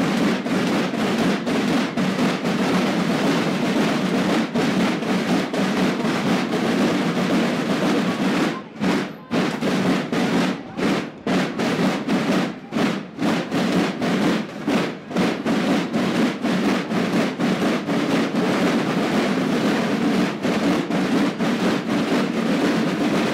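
School drum-and-bugle corps playing: snare and bass drums beating a loud, continuous marching cadence, broken by a few brief gaps.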